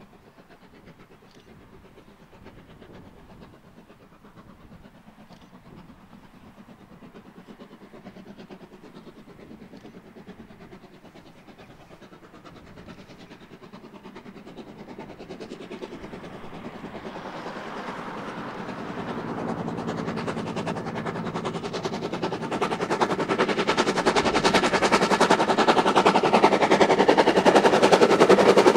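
Narrow-gauge steam tram locomotive hauling a train of wooden coaches, approaching and running past with a rapid, steady clatter that grows louder throughout and is loudest near the end.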